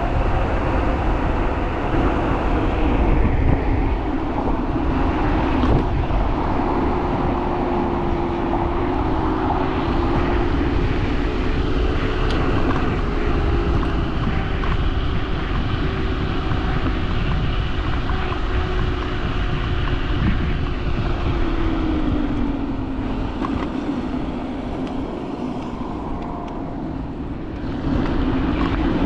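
Teverun Fighter Supreme Ultra electric scooter riding at speed: the hub motor's steady whine over heavy low wind and road rumble. The whine falls in pitch a little past two-thirds through as the scooter slows, and the noise comes back up sharply near the end.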